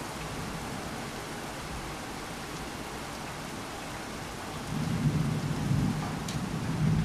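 Steady heavy rain, then thunder from about two-thirds of the way in: a low rolling rumble that swells in a few pulses.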